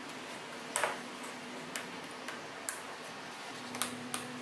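A series of light clicks and taps, about seven in four seconds, the loudest about a second in. They come from a particleboard stop block being set against a crosscut sled's fence and a clamp being fitted and tightened over it, with a faint steady hiss underneath.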